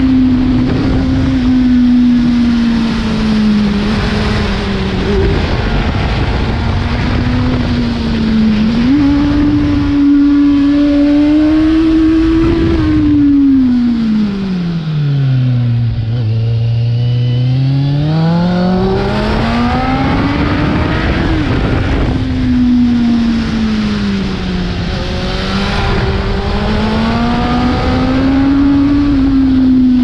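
Kawasaki Z750's inline-four engine through a full carbon aftermarket exhaust with the dB killer removed, under way on the road. The engine note holds fairly steady, jumps up about nine seconds in, then falls slowly to a low note as the bike slows through a hairpin around the middle and climbs again as it pulls out, with another dip and rise near the end.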